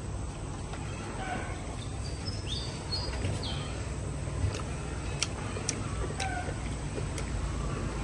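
Birds calling in the background, a few short high falling chirps, over a steady low rumble, with a few sharp clicks about halfway through.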